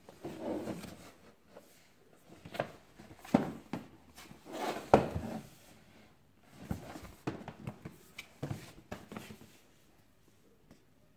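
A cardboard box being handled and turned over by hand: irregular knocks, taps and rubbing against the card, the loudest knock about five seconds in.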